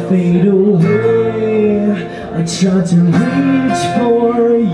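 A live acoustic band performance: a man singing long held notes over an acoustic guitar.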